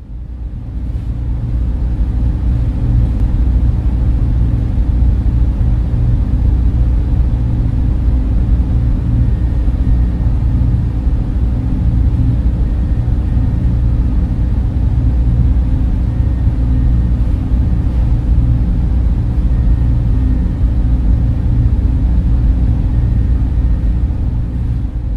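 A steady, deep rumbling drone of server-room ambience, the low hum of machines and air handling, fading in over the first couple of seconds.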